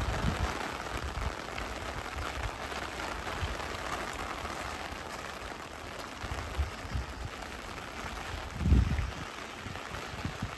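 Steady rain falling and pattering on surfaces, an even hiss, with a low thump about nine seconds in.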